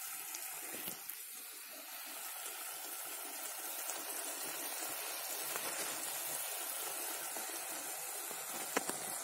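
Rice, bottle gourd and cowpeas in masala sizzling steadily in a pressure cooker pot as they are sautéed, with a few light clinks of a perforated steel ladle against the pot about a second in and near the end.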